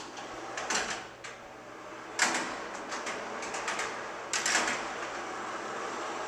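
Irregular metal clacks and rattles from a manual overhead crane's trolley and steel track hardware as the trolley is moved along the track. The sharpest clack comes about two seconds in, and a cluster of louder knocks follows around four and a half seconds.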